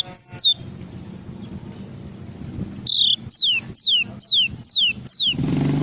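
Glatik songbird calling in a run of sharp whistled notes, each sliding down from high to lower pitch. Two notes come at the start, then after a pause six more at about two a second. A low engine-like hum runs underneath and swells louder near the end.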